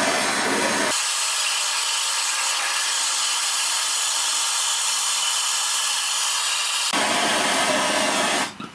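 Gas blowtorch flame hissing steadily while it burns a PA6 plastic tool housing; the low rumble underneath drops away about a second in and comes back near the end, then the sound cuts off.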